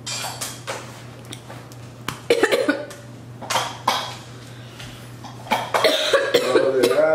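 A person coughing several times in short bursts, ending in a drawn-out voiced sound that rises and falls in pitch.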